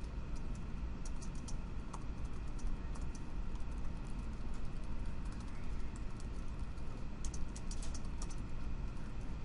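Computer keyboard typing in irregular runs of keystrokes, with the densest run about three-quarters of the way through, over a steady low background hum.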